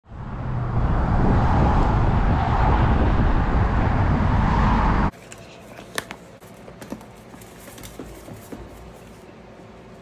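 A loud, steady rushing noise that fades in and cuts off suddenly about halfway through, followed by faint sharp clicks and taps from a hyacinth macaw's beak biting a rubber chicken toy, the loudest click about a second after the cut.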